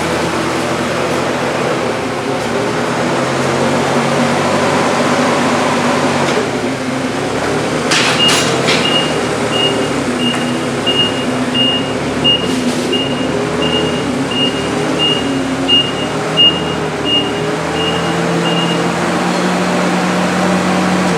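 Engine of a working vehicle running, its speed rising and falling. A reversing alarm beeps steadily about twice a second from about eight seconds in until shortly before the end.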